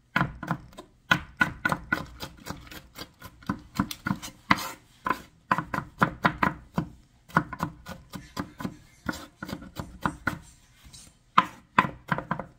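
A large kitchen knife chopping bell pepper on a cutting board: a run of sharp strokes, about two to three a second, with a short break near the end.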